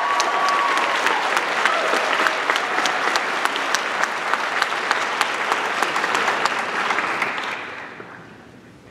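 Audience applauding, a dense steady clapping that dies away about eight seconds in.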